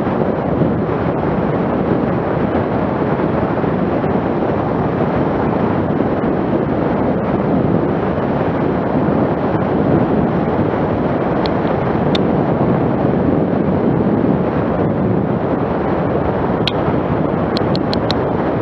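Steady, loud rushing noise of wind on the microphone, with a few faint sharp clicks in the second half and a quick run of them near the end.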